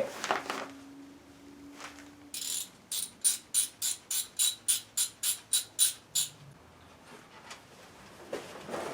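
Ratchet wrench clicking in a quick even run, about three to four clicks a second for some four seconds, starting a couple of seconds in.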